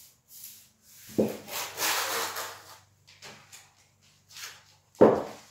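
Masking tape being pulled off the roll with a long rasping tear, followed by shorter scrapes and a sharp knock about five seconds in.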